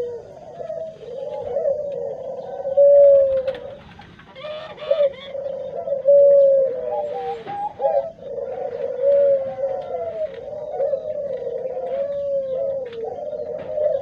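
A flock of Barbary doves (puter) cooing, many birds at once, their coos overlapping into a near-continuous chorus, with a few louder coos close by.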